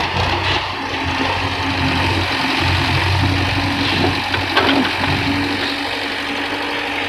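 Heavy diesel engine running steadily at idle, with a brief knock about four and a half seconds in.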